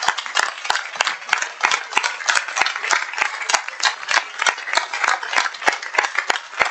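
Audience applauding: a dense, irregular patter of many hands clapping that keeps up without a break.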